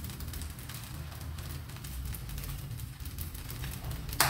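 Fried rice frying in a wok, a light crackle over a low steady hum, with one sharp knock near the end.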